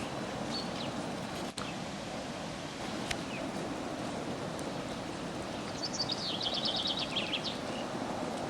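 Steady low rushing roar. Past the middle, a small songbird gives a quick high trill of about a dozen notes, with a few brief chirps earlier.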